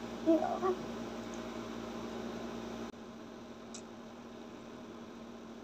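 Steady electrical hum under faint mouth noises as a small child eats grilled pork belly with her hands, with a brief hummed vocal sound from the child about half a second in. The hum drops suddenly in level about three seconds in, and a faint click follows about a second later.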